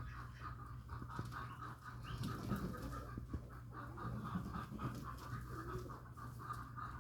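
Animal sounds over a steady background hum.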